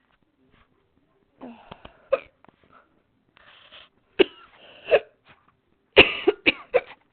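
A woman coughing: single short coughs spaced a couple of seconds apart, then a quick run of several near the end. She thinks a cold is coming on.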